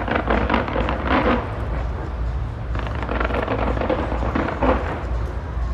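Large fireworks display going off: a continuous low rumble of booms, with bursts of crackle near the start and again from about three seconds in.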